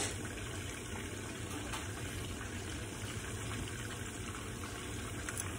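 Pork chops frying in oil in a pan, giving a steady sizzle with a few faint ticks.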